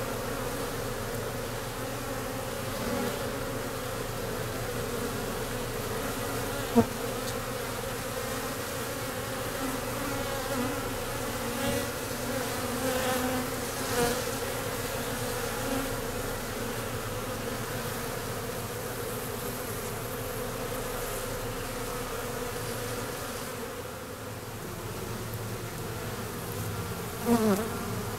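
Honeybees buzzing at a hive entrance: a steady hum of many wings, with single bees droning past close by, their pitch rising and falling, one passing very close near the end. A single sharp click about seven seconds in.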